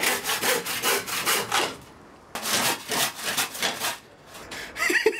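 Hand saw cutting into a wooden board with quick back-and-forth strokes, in two runs with a short pause about two seconds in.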